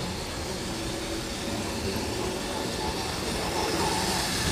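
Model railway steam tank locomotive hauling coal wagons on the track: the steady running sound of its small electric motor and wheels rolling on the rails, getting slightly louder near the end.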